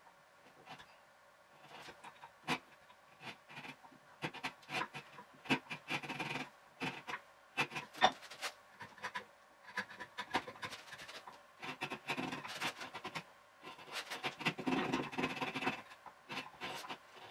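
Hand chisel paring end grain off the top of a wooden bench leg: repeated scraping strokes in clusters, with sharp clicks in between, the loudest about 8 seconds in.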